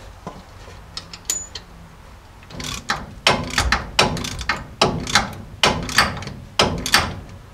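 Ratcheting wrench clicking as it tightens the nut that holds a brake hose fitting to its frame bracket. After a few scattered clicks comes a quick run of ratcheting strokes, about three a second, starting about two and a half seconds in.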